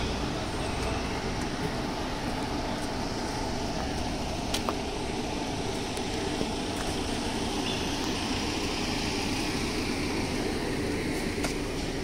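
Steady outdoor street noise with a low traffic rumble, broken by a few faint clicks.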